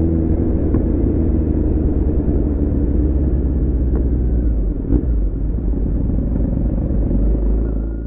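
Kawasaki Z900 inline-four engine and exhaust running steadily while the motorcycle rides along in traffic, a continuous low rumble that fades out near the end.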